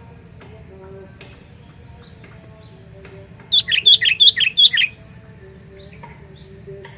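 Sooty-headed bulbul (kutilang) calling: a loud, rapid run of about eight sharp chirps, each dropping in pitch, lasting about a second and a half midway through. Fainter chirps come before and after it.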